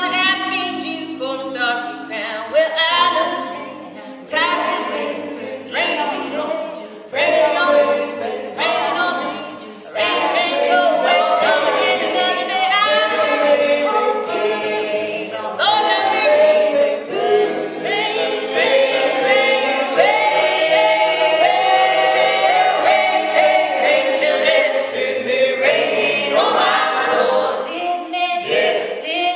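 A cappella choir singing a gospel song, several voices together. Short phrases with breaks come first, then about ten seconds in the singing becomes continuous.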